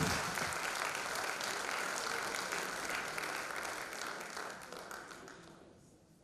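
Theatre audience applauding, the clapping fading away over about five seconds to near silence.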